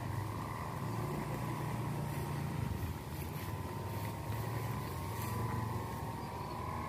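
Wind rumbling on the microphone, with a thin, steady high hum that wavers slightly in pitch.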